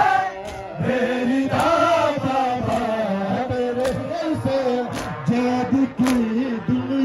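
Men chanting a noha, a Shia Muharram lament, together in a steady sung chant. From about halfway through, sharp slaps of chest-beating (matam) land roughly once a second.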